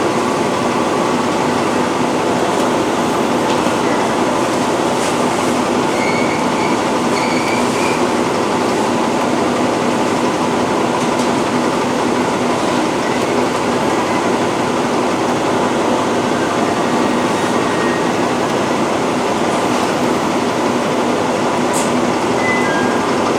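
Train running steadily, a constant rumble with a low hum. Faint short wheel squeals come about six to eight seconds in and again near the end.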